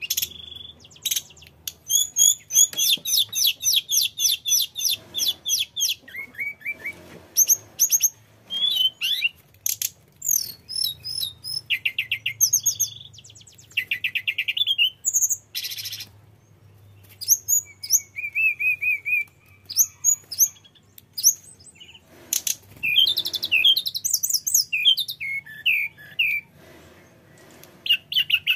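Male hill blue flycatcher singing a long, varied song: fast runs of repeated high notes and trills, mixed with clear whistled phrases and a few short pauses.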